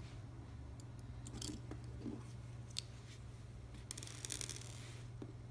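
Small plastic shell pieces of a Cheerson CX-10 nano quadcopter being handled and fitted back together: scattered light clicks and scrapes, with a quick burst of crackly clicking about four seconds in, over a steady low hum.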